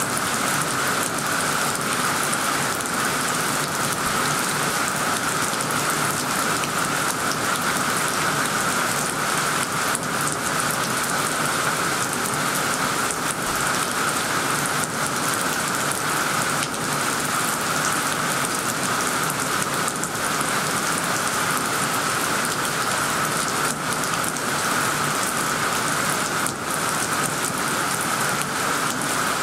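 Heavy rain falling steadily on leafy plants and trees, a constant hiss of drops hitting leaves.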